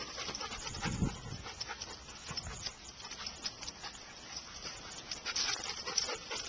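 Young black Labrador retriever breathing and moving about close to the microphone, among a spread of small clicks and rustles, with low thumps about one and two and a half seconds in from the handheld camera being moved.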